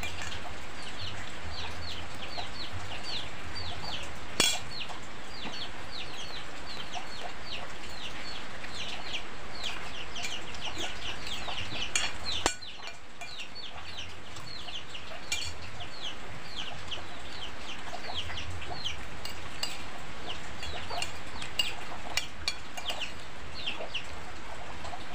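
Chicks peeping: rapid, high, short falling notes, several a second, over a steady hiss of rain. Spoons clink on plates now and then.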